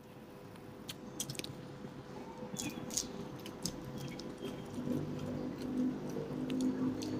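Fingers kneading white rice and sambal on a plate, making soft squishing sounds with scattered sharp clicks and crackles, most of them in the first half. A low drone grows louder in the second half.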